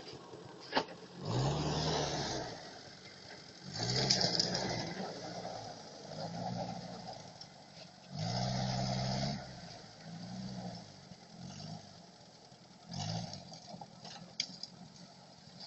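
UAZ-469 engine revved in about six short bursts, each rising and then falling in pitch, with quieter running between them.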